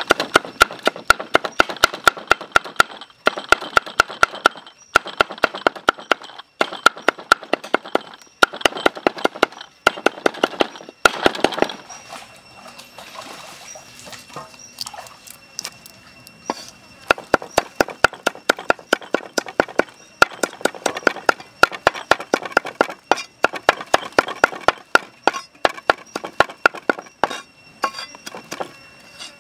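Heavy cleaver chopping chillies, garlic and shallots on a thick wooden block: quick repeated knocks, about three or four a second. The chopping stops for a few seconds midway, then starts again.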